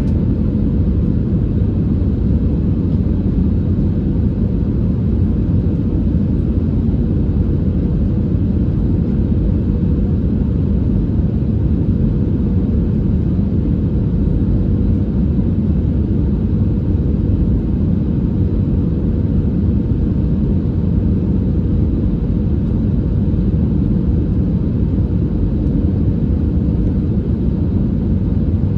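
Jet airliner cabin noise on the approach to landing: the steady low rumble of engines and airflow heard from inside the cabin, with a faint steady hum above it.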